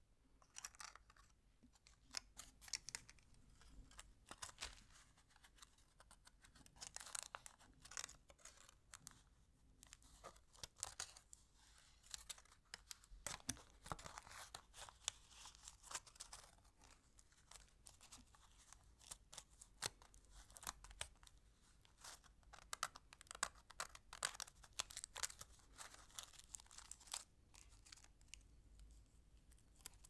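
Foil and cellophane candy wrappers crinkling and crackling between the fingers as candy is wrapped, in irregular bursts with short pauses.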